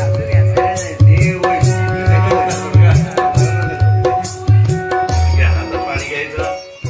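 Indian music with tabla: low bass-drum strokes about two a second, some bending in pitch, under held steady notes and crisp high strikes.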